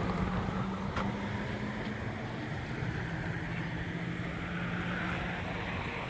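A vehicle engine running steadily, with a low even hum over a noisy rush like wind or road noise.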